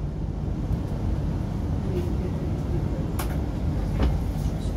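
Inside an MTR Q-Train electric metro car running through the Island Line tunnel: a steady low rumble of wheels and running gear, with two short clicks about three and four seconds in.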